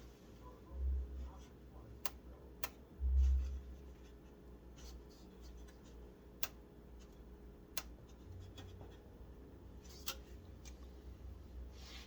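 Hands working cables inside a PC case: rubbing and scratching, about five sharp clicks spread through, and two dull low thumps about one and three seconds in, the second the loudest.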